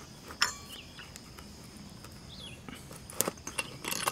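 Metal clicks and clinks as a box wrench tightens the nut holding a steel brush-cutter blade: one about half a second in, then a quick run of them near the end. Faint bird chirps in the background.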